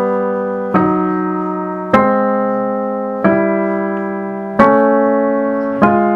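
Acoustic piano playing two-note intervals one after another in the tuned temperament octave, five strikes about every 1.3 s, each left to ring and die away. The intervals are sounded to compare their beat rates in a freshly tuned equal temperament, where with priority given to the fifth the sixth beats a little faster than the third.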